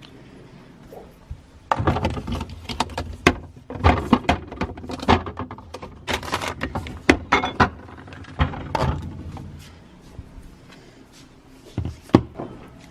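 Kitchen clatter of dishes, utensils and cupboard doors: a busy run of clicks, knocks and clinks for several seconds, a quieter pause, then two sharp knocks near the end.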